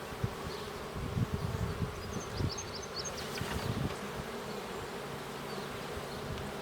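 Honeybee colony humming steadily from an open, queenless hive. About one to four seconds in come short knocks and scrapes as frames are pried loose.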